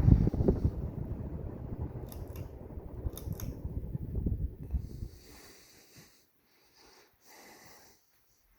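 Robbins & Myers Hunter Original ceiling fan running, a loud, uneven low rumble with a hum under it. It drops away about five seconds in, leaving only faint clicks.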